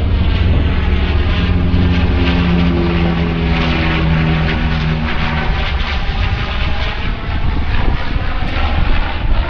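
Canadair water bomber flying past, its propeller engines making a loud, steady drone over a low rumble. An engine tone stands out in the middle and falls slightly in pitch as the plane passes.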